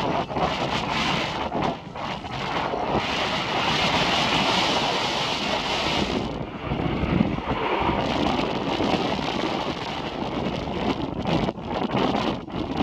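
Strong wind buffeting the microphone, mixed with the jet roar of Blue Impulse Kawasaki T-4 trainers. The hissing roar swells from about three seconds in, drops suddenly just after six seconds, and builds again after about eight seconds.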